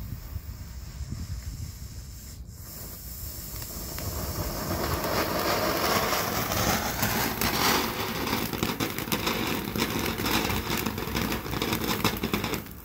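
World Class 'Fireball' mini fountain firework burning, a rushing hiss of spraying sparks. It starts weaker, grows louder about four seconds in, and cuts off sharply just before the end as the fountain burns out.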